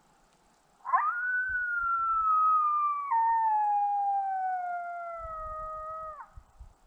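A single long coyote howl played through a Lucky Duck Rebel electronic predator call to bring coyotes in. It starts high, slides slowly down in pitch with one sudden step down partway through, and breaks off a little before the end.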